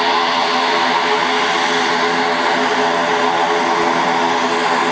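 ATR 72 twin-turboprop airliner's engines and propellers running steadily while it lines up for takeoff: a steady drone of several propeller tones over a rushing noise.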